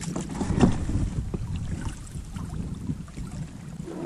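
Wind buffeting the microphone over water rippling past an inflatable PVC boat, with a few light knocks, the loudest a little over half a second in.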